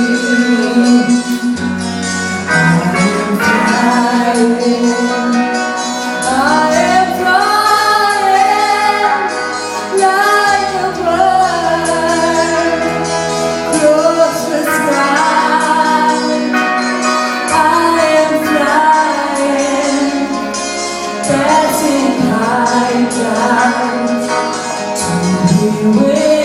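Background music: a song with a singing voice over sustained bass notes and a steady beat.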